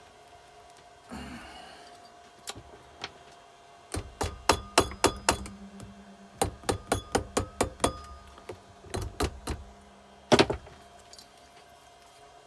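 Quick runs of sharp knocks, like tapping on metal engine parts: about six fast strikes, a short pause, about eight more, then three, and a single loudest knock near the end.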